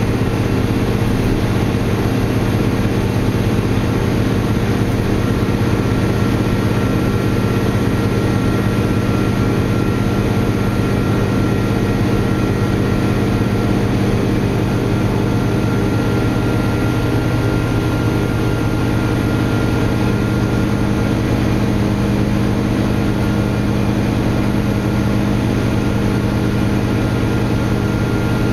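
Cummins ISL9 diesel engine of a Nova Bus LFX city bus running steadily under way, heard from inside the passenger cabin as a continuous low drone with a thin steady whine above it.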